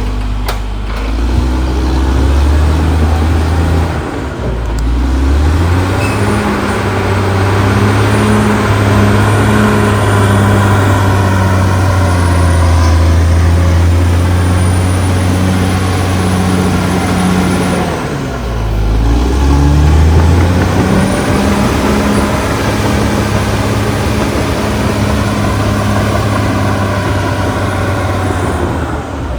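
Caterpillar D6R XL bulldozer's diesel engine running under load, its speed dipping and climbing back up about four seconds in and again about eighteen seconds in, with a faint high whine above it.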